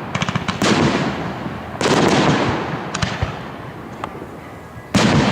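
Aerial fireworks shells bursting: a quick run of crackles, then three loud booms spread over the few seconds, each trailing off in a long echoing rumble, with a couple of single sharp cracks between them.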